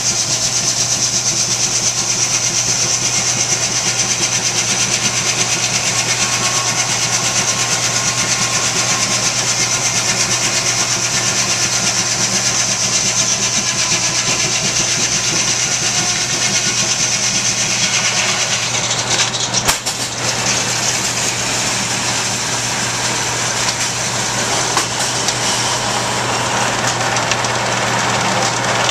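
Steam-engine-driven sawmill running: a steady mechanical din with a low hum and a high ringing whine. About twenty seconds in the sound changes suddenly, with a few sharp knocks, and the whine drops away, leaving a rougher running noise.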